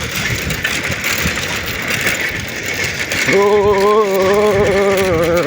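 Bicycle rear freewheel ticking steadily while the bike coasts downhill without pedalling, with wind and tyre rush. In the last two seconds a louder, long held, slightly wavering tone joins in.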